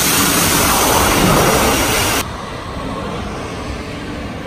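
Do-Dodonpa roller coaster's compressed-air launch system sending off a train: a loud, steady rushing hiss with a low rumble swelling about a second in, cutting off suddenly about two seconds in. After that there is a quieter outdoor background.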